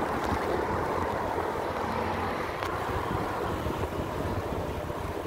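Wind buffeting a phone microphone on a moving bicycle, a steady, uneven rumble mixed with road noise.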